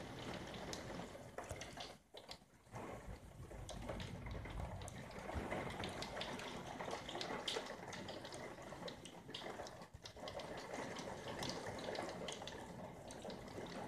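Rain falling steadily: an even rush with many small taps of drops hitting the window glass. It eases briefly about two seconds in and again near ten seconds.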